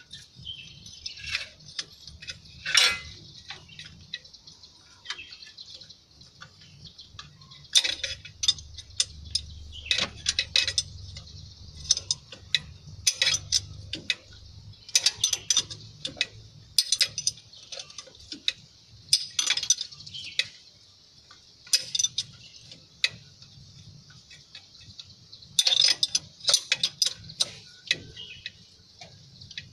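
Open-end wrenches clicking and clinking against the steel fuel-injection line nuts of a diesel engine as they are turned, in repeated bursts of quick metallic clicks every second or two.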